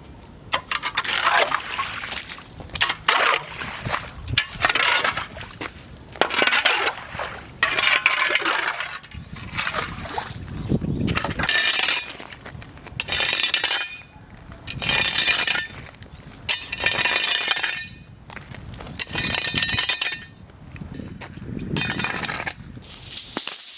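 A broom sweeping standing muddy rainwater out of potholes on a road, clearing them before dry cement and sand go in: repeated swishing, splashing strokes, about one every second or so.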